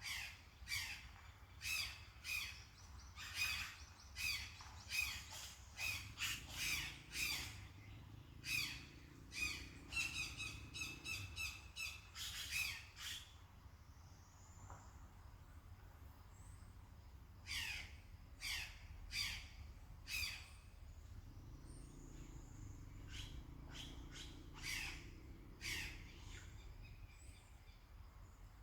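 Birds calling: rapid series of short, sharp calls that drop in pitch, in two bouts, a long one at the start and a shorter one past the middle.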